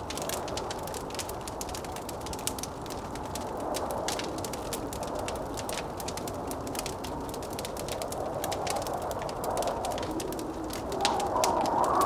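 Wood fire crackling with frequent small sharp pops, over a hollow howling wind that swells and fades and rises louder near the end.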